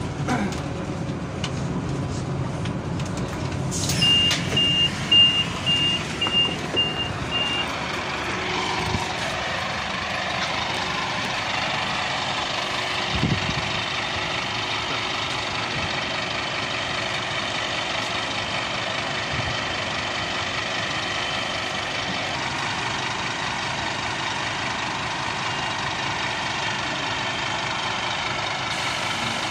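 Scania Citywide LE 12M city bus at a stop: about four seconds in, a burst of noise and then a door warning beeper sounding about eight short, even high beeps, about two a second. Then the bus's engine idling steadily.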